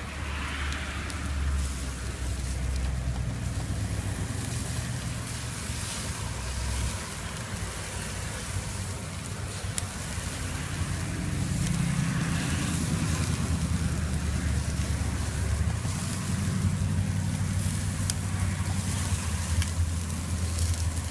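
Bacon-wrapped sausages, hot dogs and steak sizzling on a grill, with many small crackles and pops, over a steady low rumble like wind on the microphone.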